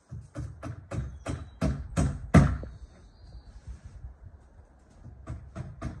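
Hammer blows on the timber of a wooden shed, about three a second, growing louder through the first run. They stop about two and a half seconds in and start again softly near the end.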